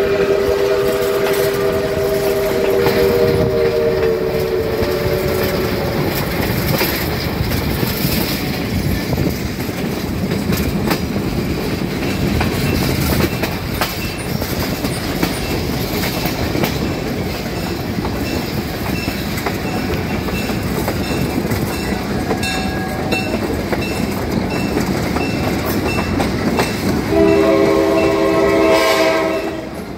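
Diesel locomotive horn sounding a chord of several notes that fades out about six seconds in, heard from aboard the train over the steady rolling and clatter of wheels on rails. Near the end the horn blows again, louder, for a couple of seconds.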